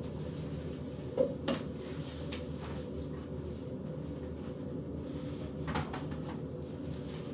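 Two short knocks about a second in and another near six seconds, like something being handled or a cabinet or door being worked off to the side, over a steady low room hum.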